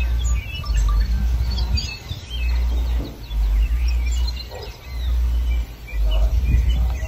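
Wind buffeting the microphone in gusts, a deep rumble that swells and drops every second or so, with small birds chirping over it.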